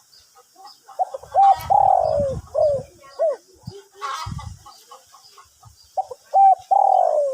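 Spotted dove cooing: a young bird just beginning to sing, in the 'two-kuk' style with a deep voice. Two coo phrases about five seconds apart, each a few short notes around one longer falling note.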